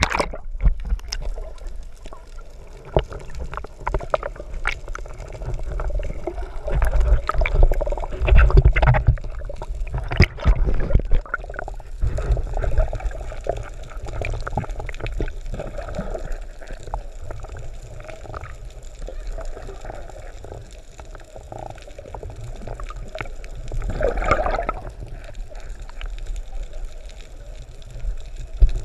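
Muffled underwater water noise heard through a submerged action camera's housing: a continuous low rumble and sloshing, gurgling water with scattered clicks and knocks, louder for a few seconds in places.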